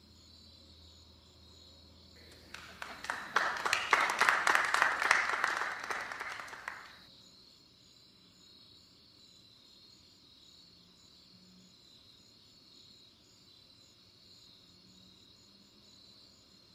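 Crickets chirping steadily in a faint, pulsing high trill. About two seconds in, a burst of dense clapping-like crackle swells and fades over roughly five seconds.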